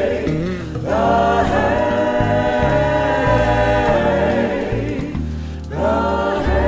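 Background music: a slow sung hymn, voices holding long notes, with short pauses between phrases about a second in and again near the end.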